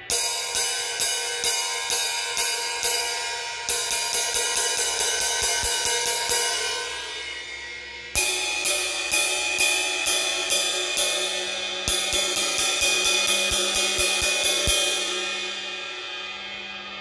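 Vintage Paiste Sound Creation Bright Medium ride cymbals struck with a drumstick, the 18-inch first and then the 20-inch. The strokes come about two a second, then quicken to a faster ride pattern. A new passage starts sharply about eight seconds in, and near the end the strokes stop and the cymbal rings out, fading.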